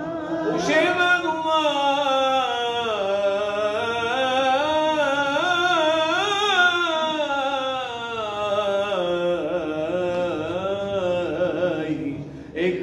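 Cantor's solo male voice singing hazzanut unaccompanied: one long, ornamented melismatic phrase with a wavering, trilled pitch, with a brief break for breath near the end.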